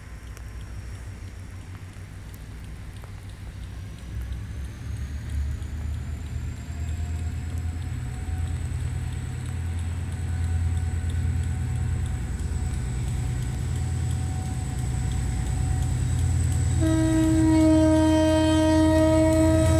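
GT22 diesel-electric locomotive approaching with a passenger train, its engine's low rumble growing steadily louder as it comes closer. Near the end the locomotive's horn sounds one long blast lasting about three seconds.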